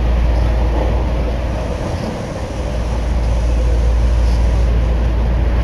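Osaka Metro Nagahori Tsurumi-ryokuchi Line linear-motor subway train running through a tunnel, heard from inside the car: a steady, loud rumble with a deep low hum that dips briefly about two seconds in.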